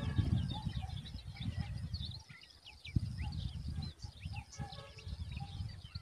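Birds chirping: many short, high chirps and quick pitch sweeps, some in small clusters, over a low rumbling noise.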